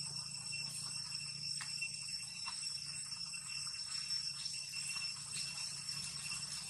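Forest ambience: a steady, high-pitched insect drone with a low hum beneath it.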